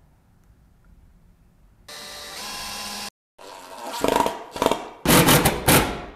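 Cordless drill boring into a wooden backing board: a steady motor whine for about a second, then after a short break several loud grinding bursts as the bit cuts into the wood, drilling a pilot hole.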